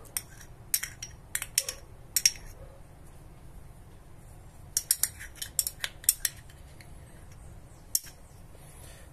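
Metal spoon scraping and clinking against a small ceramic bowl while mustard is scooped out: sharp clinks in two clusters, one at the start and one about five seconds in, with a single tap near the end.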